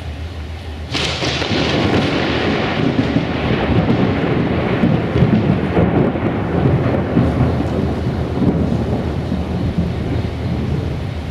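Loud thunderclap: a sudden sharp crack about a second in, then a long rolling rumble that slowly fades.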